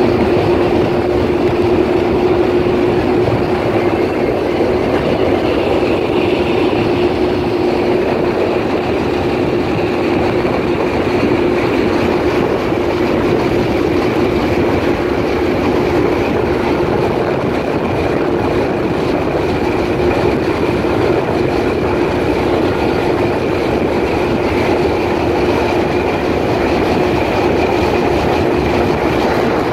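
Jet ski engine running at a steady cruising speed: an even drone with one constant tone, over a rush of water and wind.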